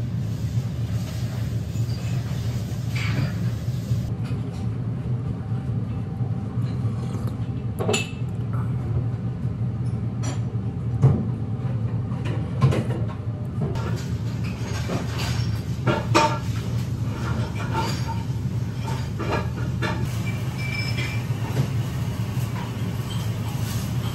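Steady low rumble of room noise, with a few sharp clinks of tableware scattered through it, like a ceramic spoon knocking a soup bowl.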